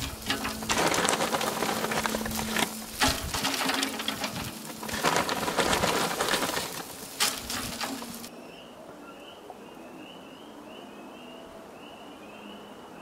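Meat sizzling on a barbecue grill, a loud crackling hiss over a steady low hum. After about eight seconds it cuts off abruptly to a quieter stretch where a bird sings a run of short, high chirps.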